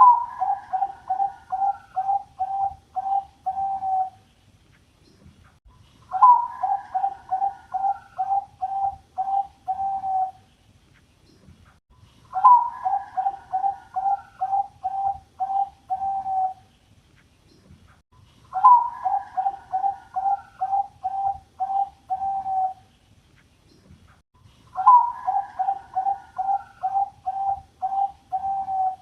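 Zebra dove (Bangkok-type perkutut) singing its cooing song five times, about once every six seconds: each phrase opens on a higher note, followed by a quick run of about eight short, lower coos.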